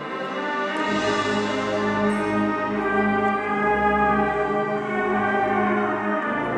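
Middle school concert band playing held woodwind and brass chords. Low bass notes come in about a second in and drop away near the end.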